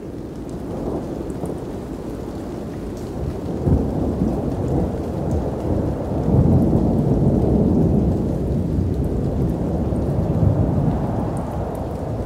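Thunderstorm sound: a long rolling rumble of thunder with rain, swelling to its loudest about halfway through and easing off toward the end.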